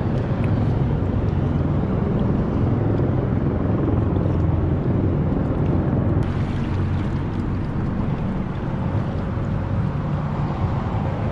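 A steady low rumble with a lighter hiss over it and no distinct events. The hiss changes slightly about six seconds in.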